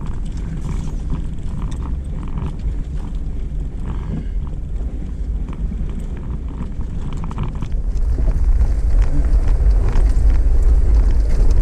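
Off-road 4x4 driving along a dirt trail: a steady low engine and tyre rumble that grows louder about eight seconds in.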